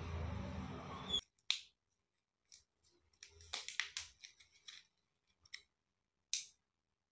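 Clear plastic wrapper on a candy being handled and peeled open by hand. A close rustle for about the first second gives way to scattered sharp crinkles and clicks, thickest about three to five seconds in, with one last crackle a little after six seconds.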